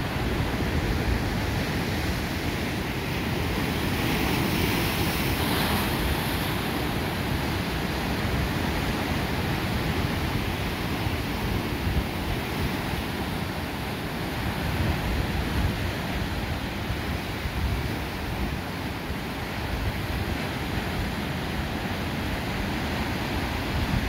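Ocean surf: waves breaking and washing in a continuous rush, with one wave breaking louder about five seconds in.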